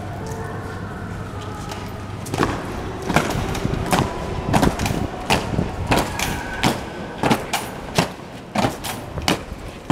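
Guard soldiers' boots stamping in a ceremonial march step on wet stone, sharp regular strikes about one every two-thirds of a second. The stamping starts a couple of seconds in.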